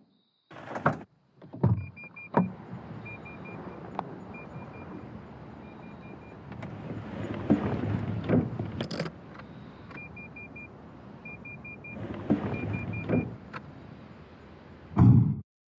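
Car interior: an electronic warning chime beeping in short runs of quick beeps, over rustling and handling noises, with several dull thumps, the loudest about a second before the end.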